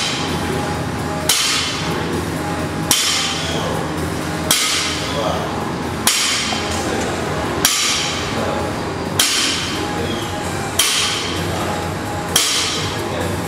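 Loaded barbell set down on the floor at each deadlift rep, eight evenly paced impacts about a second and a half apart, each with a short metallic clank and rattle of the plates. Background music plays steadily underneath.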